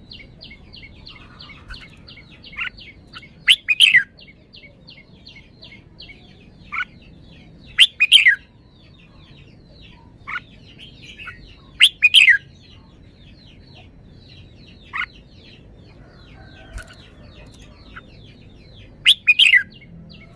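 Red-whiskered bulbul singing short, loud, warbled phrases every few seconds, with a steady rapid chirping going on behind.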